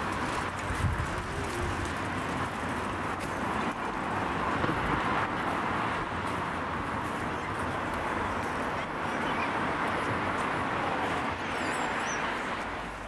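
City street ambience: a steady wash of road traffic noise, with faint voices mixed in.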